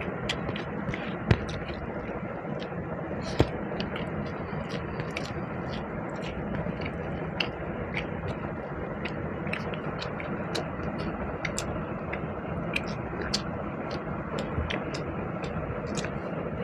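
A person chewing and eating basmati pulao with chicken curry, with frequent small wet mouth clicks and smacks, a few sharper ones in the first few seconds. A steady background hum runs underneath.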